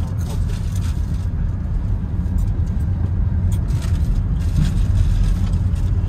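Steady low rumble of a road vehicle on the move, engine and road noise.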